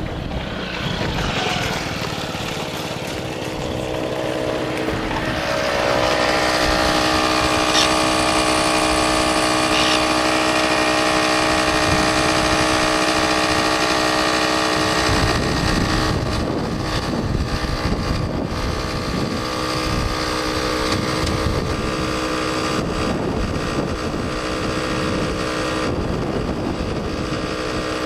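A motor vehicle's engine running. Its pitch rises about five seconds in and then holds steady, and from about fifteen seconds in the steady tone gives way to rough, rumbling noise.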